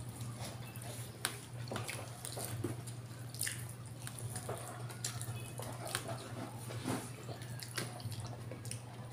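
Wet chewing and lip-smacking of people eating afritada and rice by hand, with scattered short clicks and smacks, over a steady low hum.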